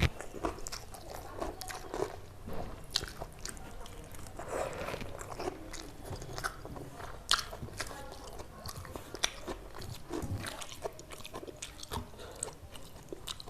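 A person eating close to the microphone: wet chewing broken by irregular crisp crunches, the sharpest about seven seconds in.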